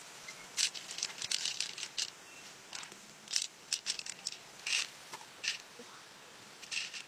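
Pearls clicking and rattling against each other and the shell as they are scooped and sorted by hand, in irregular little clusters of small clicks.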